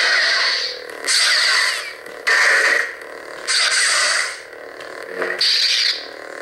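Custom lightsaber soundboard playing Clone Wars sound font clash effects through the saber's speaker. Five clashes come in quick succession, each cutting in suddenly and dying away within about a second, with the saber's steady hum underneath between them.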